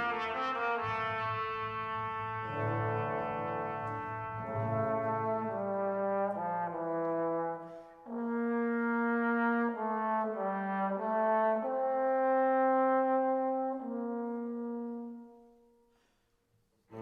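Background music: a slow melody of held brass notes, with a short break about eight seconds in. It fades out near the end.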